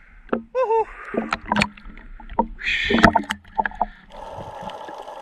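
Water splashing and knocking in shallow water while crabs are caught by hand, with a short wavering voice sound near the start. From about four seconds in, a steady rush of water noise.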